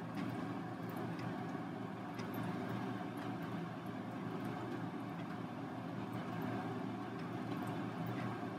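Steady low background hum with a few faint, light ticks scattered through it.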